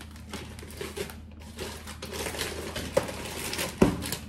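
Plastic grocery packets crinkling and rustling as they are handled and moved aside, with a small click and then a sharp knock near the end as one is set down.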